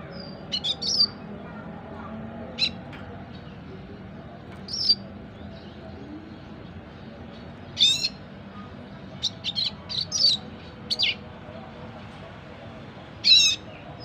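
Young red siskin, about four months old, giving short, high chirps and brief twittering phrases every second or two: a juvenile still learning its song.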